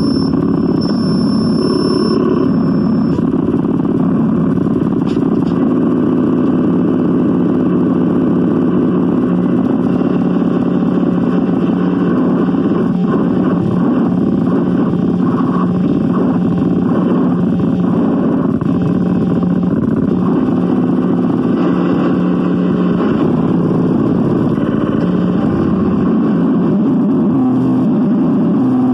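Harsh noise: a loud, dense, unbroken wall of distorted rumble and hiss at a constant level, with no beat or melody.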